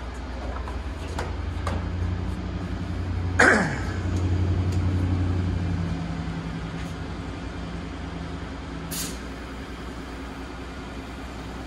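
Steady low hum of shop machinery, with a sudden sharp noise about a third of the way in that falls away in pitch, and a short hiss about three quarters of the way through.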